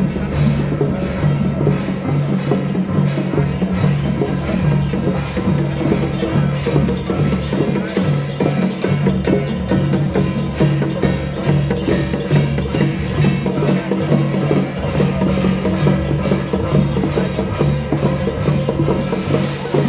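Music played by a traditional percussion ensemble: fast, continuous strikes of drums and wood-block-like percussion over sustained low tones.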